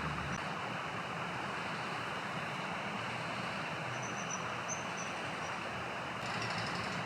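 Steady outdoor background noise, with a few faint, high bird chirps about four to five seconds in.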